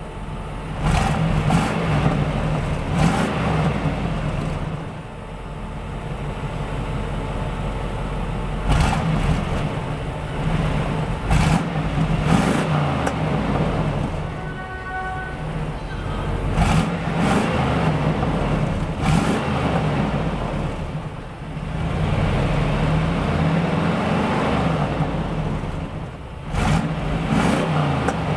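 Exhaust of a 1994 Buick Roadmaster's 5.7-litre LT1 V8 at the tailpipe, running with a steady low rumble and revved up several times, the sound swelling and dropping back each time.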